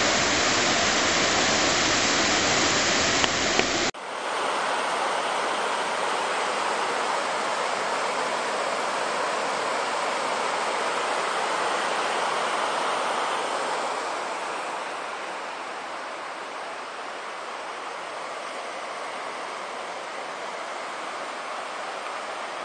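Fast-flowing river water rushing over rapids and a weir, a steady, heavy rush of white water. About four seconds in, a cut brings a thinner rush with less low rumble, which grows a little quieter after about fourteen seconds.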